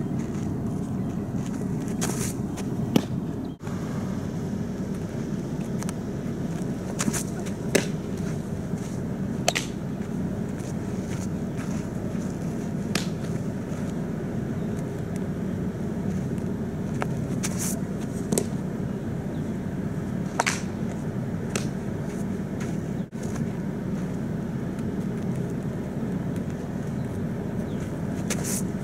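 Fastpitch softball pitches smacking into a catcher's mitt: short sharp pops every few seconds, sometimes two close together. Under them runs a steady low background rumble.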